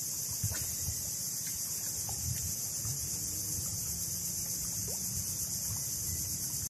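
Steady high-pitched insect chorus, like cicadas or crickets, with a faint low rumble and a small knock about half a second in.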